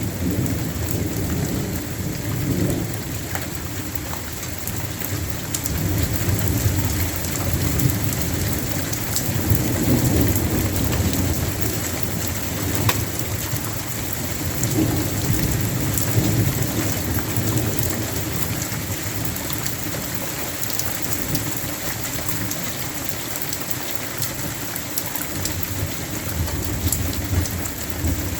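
Heavy rain falling steadily, with low thunder rumbles swelling and fading several times.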